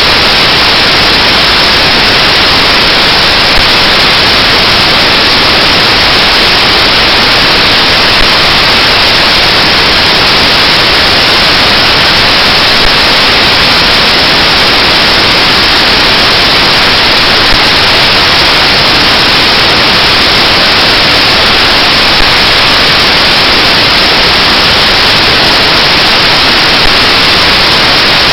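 Loud, steady static hiss with nothing else audible, a small tick recurring about every four and a half seconds.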